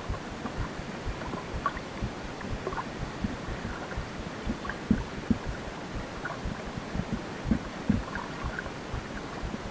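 Water lapping against a small boat's hull, with scattered soft knocks over a steady hiss.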